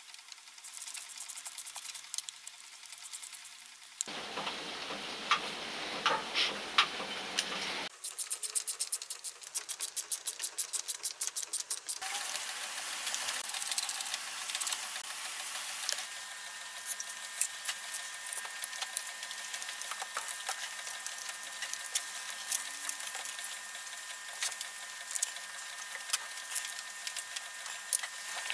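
Hand reassembly of a Hitachi GA21 groove cutter, heard as short cut-together stretches: screws being driven into the metal bearing plate, then the fan cover and drive belt being fitted, with light clicks and knocks of metal and plastic parts. About a third of the way in there is a few-second run of fast, even ticking.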